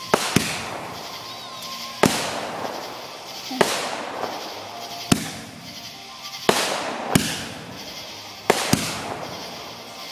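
Aerial fireworks going off in a quick series, about nine sharp bangs spaced roughly a second or so apart (two come close together near the start and again near the end), each trailing off in a fading crackling hiss.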